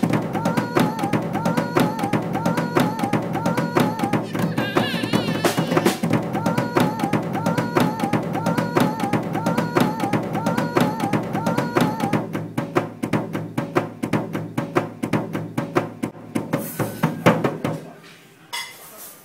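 A toddler slapping the heads of an acoustic drum kit's toms and snare with his hands in a loose, irregular stream of hits, over backing music with a repeating melody. The melody stops about twelve seconds in, and the drumming thins out and fades near the end.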